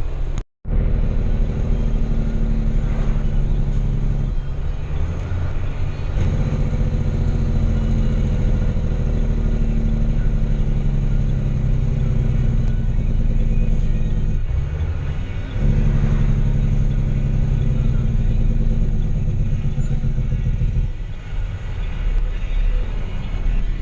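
Heavy diesel farm machinery engine running steadily, its note shifting several times.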